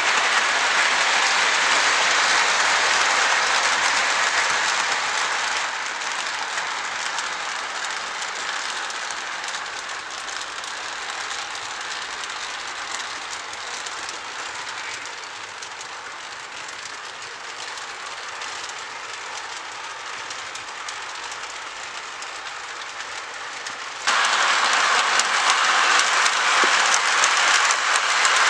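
Model train running on its track, a steady whirring rush of wheels and motors. It fades as the train draws away, then about 24 seconds in turns suddenly loud, close by.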